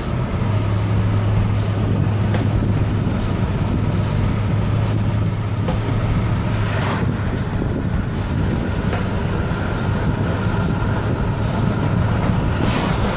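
Steady low drone of road and engine noise inside a moving car's cabin, with a faint regular high ticking beat over it, about twice a second.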